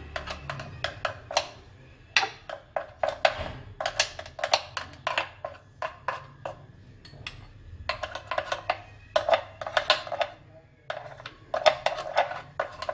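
Background music made of quick, short percussive notes.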